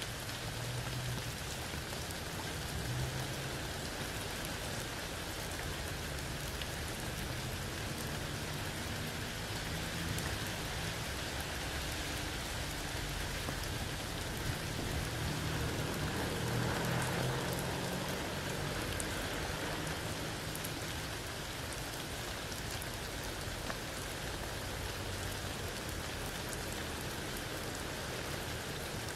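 Steady rain falling through a tree's leaves onto wet ground and a puddle, a constant hiss with a fine patter of single drops, swelling slightly about two thirds of the way through.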